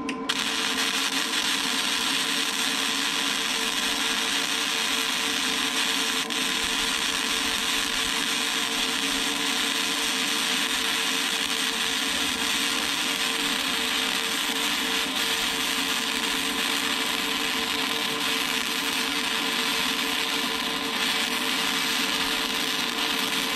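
Wire-feed (MIG) welder arc running a continuous bead, a steady crackling hiss that starts abruptly and cuts off near the end: a root pass being laid in the beveled, gapped joint of a broken steel loader fork.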